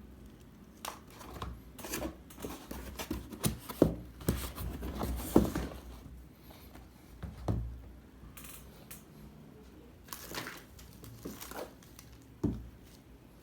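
Packaging being handled and unwrapped: irregular rustling and crinkling with clicks and light knocks, busiest in the first half, and a single sharp knock near the end.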